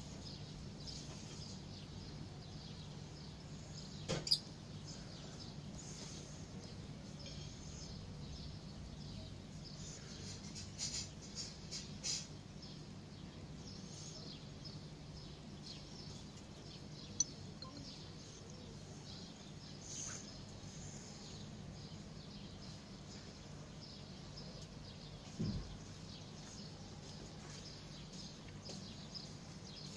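Faint background: a steady low hum with scattered faint bird chirps and a few brief soft knocks.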